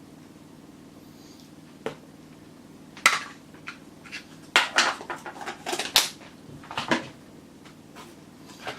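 A utensil clinking and scraping against a dish or tin. There is a single tap about two seconds in, then a run of clatters and scrapes from about three to seven seconds in.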